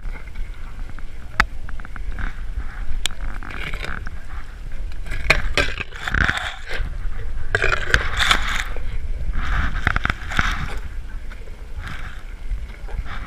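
Asian elephant eating peeled bananas with its mouth pressed against the camera: irregular wet chewing and mouthing, lips and skin rubbing over the camera, with a few sharp clicks.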